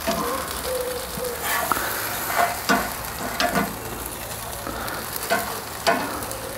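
Oiled, crumb-coated chicken wings sizzling on hot grill grates, with metal tongs clicking and scraping several times as the wings are turned over.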